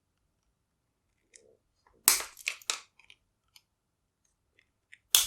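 Sharp metallic clicks and scrapes of a tool working at the plug of a vintage American Series 600 padlock: a cluster about two seconds in, scattered small ticks, and a loud click near the end. It is a failed attempt to push out the plug's retaining pins.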